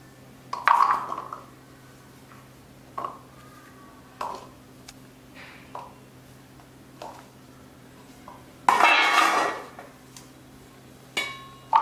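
Star gooseberries scooped with a plastic measuring cup and tipped into a stainless steel bowl: short knocks and clinks every second or two, and a longer, louder clatter about nine seconds in as a cupful of the small fruit rattles into the bowl. A faint steady low hum underneath.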